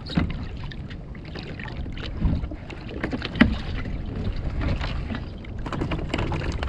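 Water lapping against the hull of a fishing kayak, with wind on the microphone, under a run of small clicks and knocks from fishing tackle being handled on the deck; the two loudest knocks come about two and three and a half seconds in.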